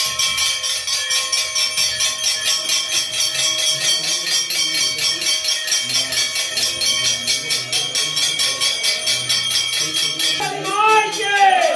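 A brass hand bell rung rapidly and steadily during a Hindu temple puja, about seven strokes a second, its ringing tones sustained between strokes. Near the end a few wavering, rising-and-falling tones join in.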